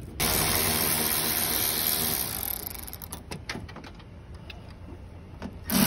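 Cordless power driver backing out the quarter-glass frame screws: a steady motor whir with hiss that dies down after a couple of seconds, then a few sharp clicks, and a loud noise again near the end.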